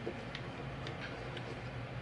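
A few faint, light metal ticks as the cap screws of Seekins scope rings are snugged down slightly around the scope tube.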